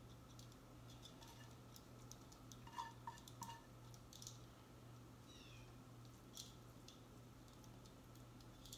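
Faint clicks and scrapes of metal tongs against frying pans as meat and sauerkraut are shifted from one skillet into another, with a few quick clinks about three seconds in.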